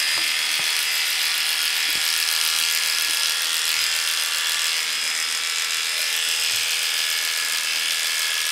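Cordless dog clippers with a number 10 blade running steadily, a constant electric buzz as the blade shaves the curly coat on a poodle's cheek and jaw.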